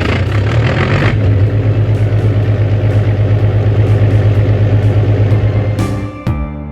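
Truck engine sound effect running at a steady low idle with a fast, even throb, with extra hiss in the first second. It stops about six seconds in.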